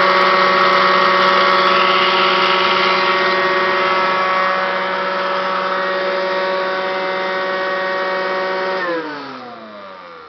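Kirby Classic 1-CR upright vacuum cleaner running loud, a steady whine with several tones over a rough noise, from worn-out motor bearings. About nine seconds in it is switched off and the motor winds down, its pitch falling.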